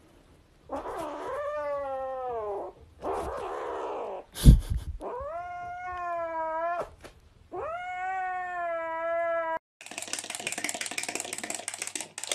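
A kitten yowling in four long, drawn-out cries: the first two fall in pitch, the last two rise and then hold steady. A sharp thump comes between the second and third cries. Near the end a dense rattling noise takes over.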